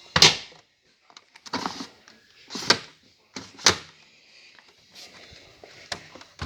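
Washing machine and dryer doors being opened and shut, about six sharp clunks a second or so apart.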